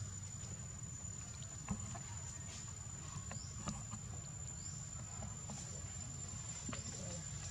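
Outdoor ambience: a steady high-pitched whine over a low rumble, with scattered light ticks and rustles and two brief rising chirps near the middle.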